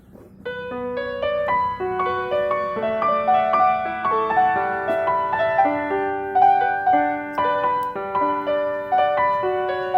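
Background music: a piano or keyboard melody of distinct, sustained notes, starting about half a second in.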